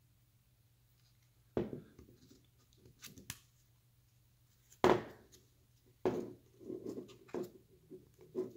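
Hard plastic parts of a polymer carbine stock being handled, as small 3D-printed slot adapters are fitted into its slots. A sharp knock comes about one and a half seconds in, then two light clicks, a louder knock near the middle, and scraping and rubbing toward the end.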